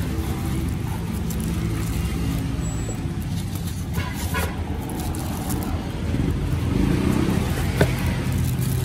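Plastic wrapping crinkling and packing foam rustling as a boxed CPU air cooler is worked out of its foam insert by hand, with a few sharper crackles about four seconds in and near the end. A steady low rumble runs underneath.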